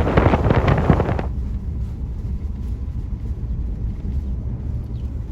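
Wind buffeting the microphone: loud gusty noise that drops suddenly about a second in to a steady low rumble.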